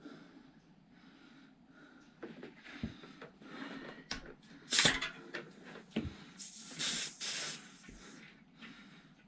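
Handling of mountain-bike wheel parts and tools: a few scattered knocks and clicks, the loudest about five seconds in, with a short hiss-like rustle around seven seconds.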